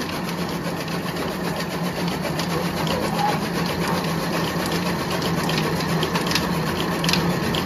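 Chaff cutter running steadily, with a fast, even clatter as green fodder stalks are fed in and chopped.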